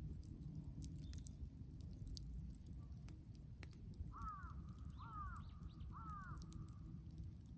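A crow cawing three times, a little under a second apart, in the second half. Faint scattered crackles from the burning brushwood fire run underneath.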